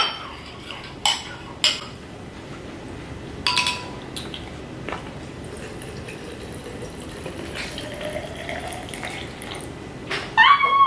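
Glassware clinking a few times, then juice being poured into a glass container, with a steady splashing hiss whose pitch rises as the vessel fills.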